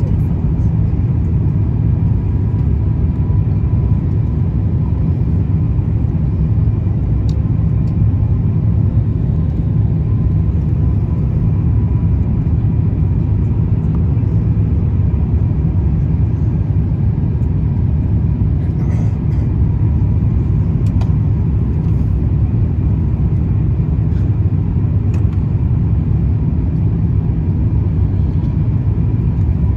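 Cabin noise of an Airbus A350-1000 in flight: a steady, loud low rumble of airflow and its Rolls-Royce Trent XWB engines, with a faint, even whine on top.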